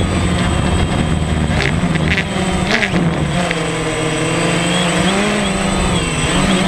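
DJI Phantom quadcopter's electric motors and propellers buzzing steadily, heard from the GoPro mounted on the drone. The pitch wavers, dipping about three seconds in and rising again, as the motors speed up and slow down while it manoeuvres.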